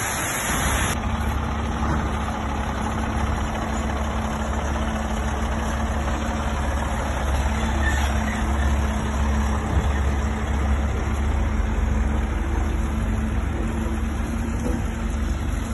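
Peterbilt semi-tractor's diesel engine idling steadily with an even, low drone.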